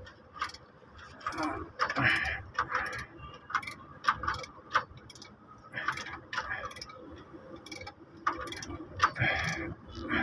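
Irregular metallic clicks and taps from a hand tool turning the adjuster bolt while an air-conditioning belt is fitted.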